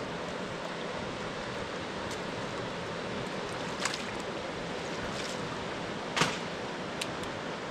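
Steady rush of flowing river water, broken by a few short, sharp clicks or splashes, the loudest about six seconds in.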